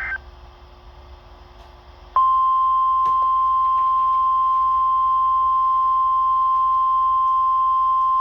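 NOAA Weather Radio alert tones in a Required Weekly Test of the SAME and tone alert systems. The last SAME data burst, a shrill digital warble, cuts off at the very start. About two seconds later the 1050 Hz warning alarm tone comes on: one loud, steady tone.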